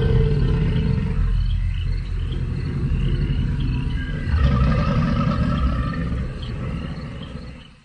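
Sound-designed Spinosaurus call: a low, rumbling vocalization, with a second louder call starting about four seconds in, over a background of chirping insects. It fades out at the end.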